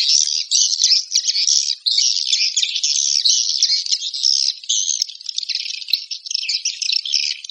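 Swiftlets' high-pitched chattering calls, a dense continuous twittering rattle with brief gaps. This is a 'panggil' (calling) lure track of the kind played to draw swiftlets into a nesting house.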